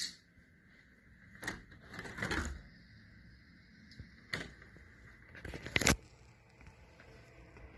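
Short rustles and knocks as a sheer curtain is brushed aside and a balcony door frame is passed with the phone in hand: about five brief sounds, the loudest near six seconds in.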